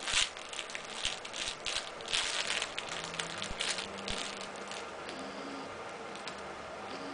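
Crinkly material on a baby's play mat crackling and rustling in quick irregular bursts as she shifts on it, dying down after about four seconds.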